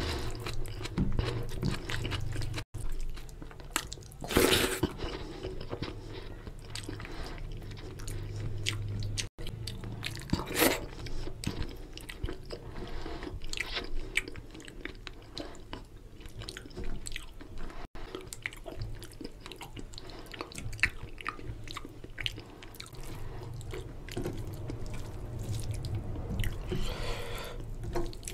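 Close-miked chewing and mouth smacks of a person eating fatty mutton curry with rice, mixed with wet squelches of fingers kneading rice into the oily curry. Two louder smacks come about four and ten seconds in.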